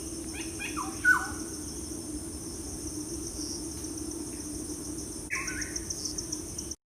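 Birds calling over a steady, high, pulsing trill of crickets or other insects. A short run of calls comes about a second in, the loudest moment, and another call comes near five seconds; then the sound cuts off abruptly just before the end.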